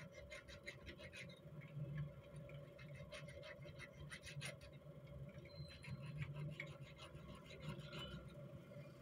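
Small round needle file scraping over a small metal part held in a bench vise, in quick, uneven strokes: hand-filing a part to shape.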